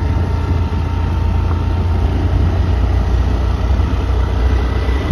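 Steady low rumble of a moving road vehicle: engine and road noise while driving along.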